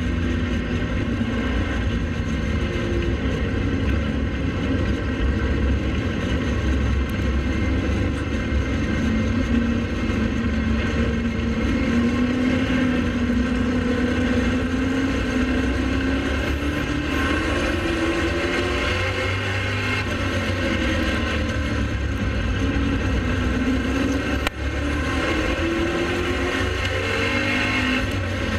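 Pro Late Model race car engine running hard at racing speed over a heavy low rumble, its pitch slowly rising and falling every few seconds as the throttle comes on and off. The sound drops out for an instant about 24 seconds in.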